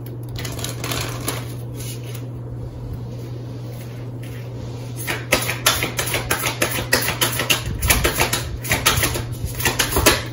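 Tarot cards being shuffled by hand: a few scattered card clicks, then from about halfway in a quick, dense patter of cards slapping together, over a steady low hum.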